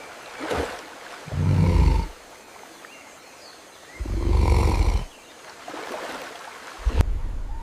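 Deep monster roars, two in a row, each lasting about a second, over a steady background hiss. Near the end a sharp crack is followed by a low rumble.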